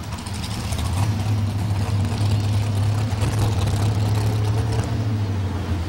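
Big-block Chevrolet engine of a modified 4x4 pulling truck running at a steady low idle with open exhaust stacks while the truck drives slowly.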